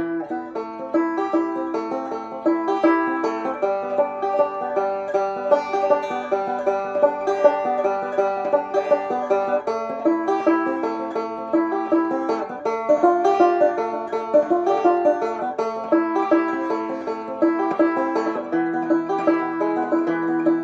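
Bluegrass instrumental break with a banjo picking a fast, steady run of notes, and no singing.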